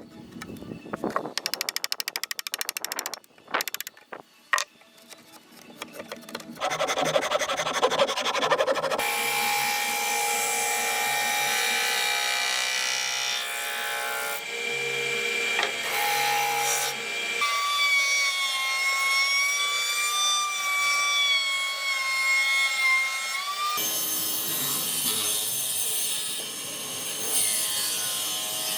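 Workshop tools working on wood: quick repeated hand-tool strokes for the first few seconds, then a steady machine-like running sound, spliced together with abrupt cuts, and a pitched whine in the middle section.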